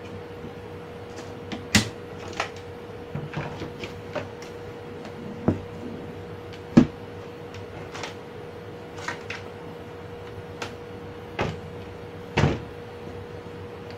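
Knocks and clicks of a plastic LED TV back cover and metal chassis being handled and set down, about ten scattered sharp knocks with the loudest about seven seconds in. A steady faint hum runs underneath.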